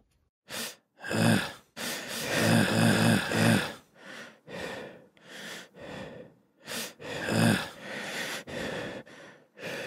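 A person making loud, breathy vocal noises in about a dozen short bursts, a few with a low voiced grunt in them, one run pulsing four times in quick succession.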